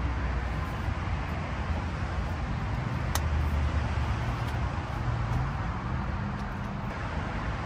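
Steady rumble of busy highway traffic, with one vehicle's engine note rising in pitch about five to six seconds in. A single sharp clink about three seconds in as cookware is handled.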